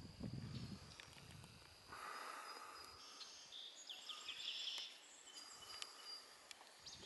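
Quiet woodland ambience: a few soft steps or thuds near the start, a thin steady high insect-like tone, and a run of short high bird chirps near the middle.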